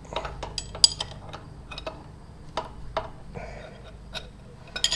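Scattered small metallic clicks and clinks of wrenches on a motorcycle chain riveting tool as its pressure bolt is tightened to flare the master link pin. The sharpest click comes a little under a second in.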